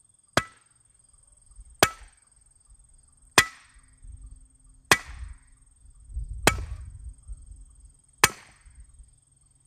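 Six measured hammer blows about a second and a half apart, each a sharp strike with a short metallic ring, driving a metal spike anchor for a mailbox post into the ground.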